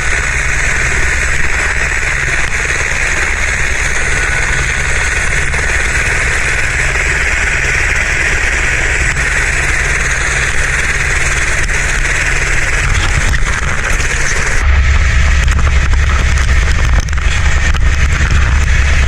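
Helicopter in flight: steady turbine and rotor noise with a pulsing low rumble. About 15 seconds in, the low rumble becomes much louder.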